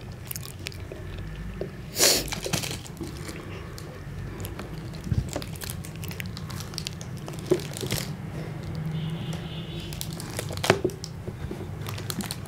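Plastic chocolate-bar wrapper crinkling and crackling as it is gripped and torn open with the teeth, in scattered sharp crackles, the loudest about two seconds in and another near ten and a half seconds.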